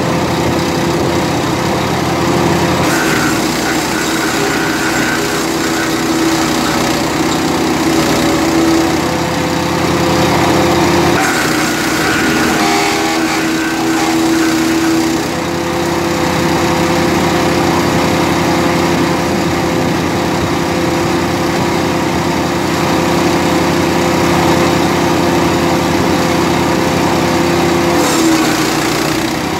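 GeoTech PCS 150L chipper shredder's 15 hp Loncin single-cylinder four-stroke petrol engine running steadily at working speed while branches are fed into the hopper and chipped. Its tone shifts a few times as the load changes.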